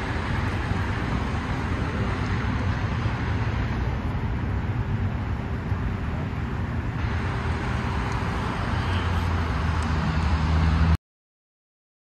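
Steady outdoor city traffic noise, with a vehicle engine's low hum growing louder near the end, then cutting off abruptly to silence about eleven seconds in.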